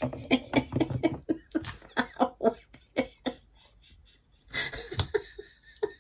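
A woman laughing to herself in a run of short, rapid bursts that trail off about halfway through. A breathy exhale follows, with one sharp click about five seconds in.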